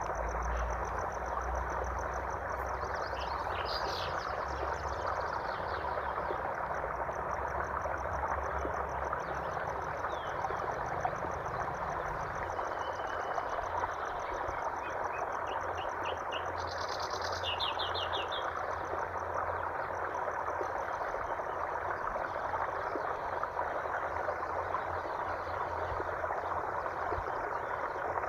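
Steady rush of flowing water, with birds chirping now and then and a fast, high-pitched trill running behind.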